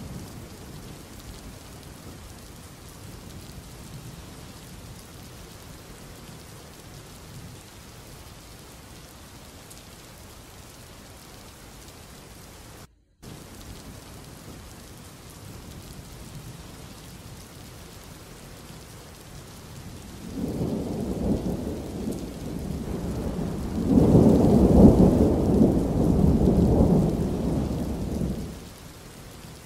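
Steady rain with a deep roll of thunder that starts about two-thirds of the way in, swells, and dies away near the end. The rain cuts out for a moment near the middle.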